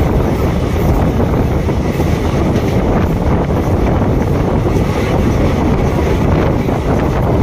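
Steady wind rushing over the microphone on board a moving passenger train, with the train's running noise underneath.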